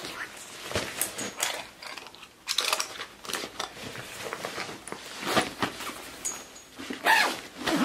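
A padded polyester camera backpack being handled and packed: fabric rustling and scraping, with several short rasping noises.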